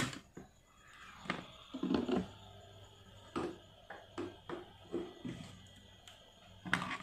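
Hot-air rework blower running with a faint steady hum and thin high tones, under irregular small knocks and clicks as tools work the glue on the phone's circuit board.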